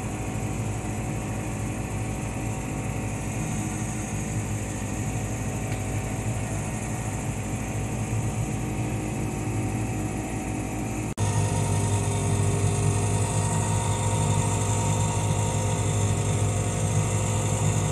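Tractor engine running steadily, heard from inside the cab. About eleven seconds in the sound breaks off for an instant and comes back louder.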